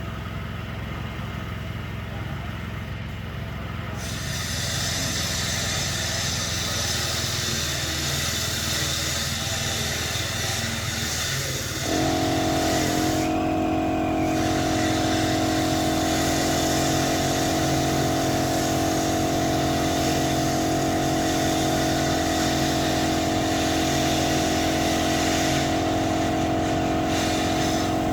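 Steady mechanical running with a hiss that comes in about four seconds in; about twelve seconds in, a louder, steady, pitched motor hum starts suddenly and holds.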